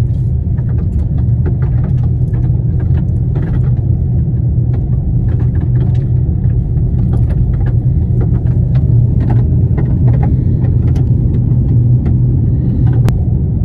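Car driving along a gravel road, heard from inside the cabin: a steady low rumble of tyres and engine, with scattered small clicks and ticks throughout.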